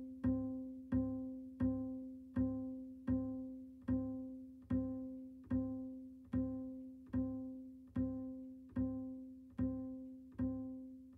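A single plucked string note repeated at a steady, slightly slowing pulse, about one note every 0.8 seconds. Each note dies away before the next.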